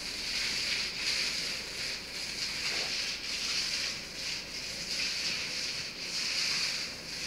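Paint roller on an extension pole rolling latex paint onto a wall: a wet, sticky hiss that swells and fades with each stroke, about one stroke a second.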